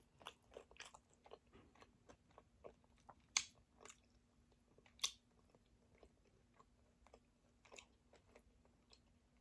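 Close-miked chewing and biting of crispy fried chicken wings: soft, wet mouth clicks and small crunches, with two sharper crunches about three and a half and five seconds in. A faint steady hum sits underneath.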